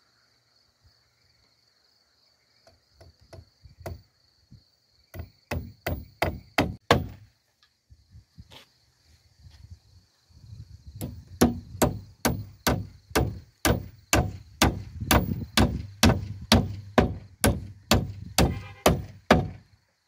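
Hammer driving nails into a timber frame. A short burst of blows comes about five to seven seconds in, then after a pause a long steady run of about three strikes a second.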